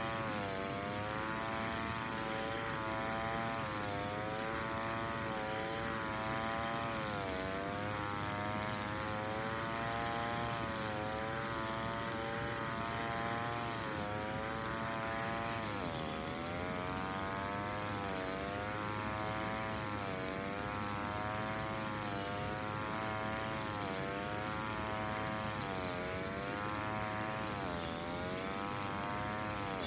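Brush cutter engine running at high revs, its pitch wavering and dipping sharply a few times as the blade takes load in the grass, with scattered light ticks.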